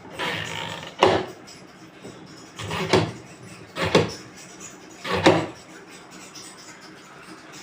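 A series of about five sharp clunks over the first five seconds, each with a brief scraping or rattling lead-in, then quieter.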